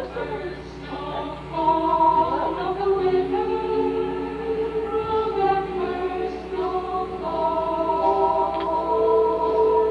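A choir singing a Christmas carol in held, sustained notes, played from a cassette tape on a portable stereo.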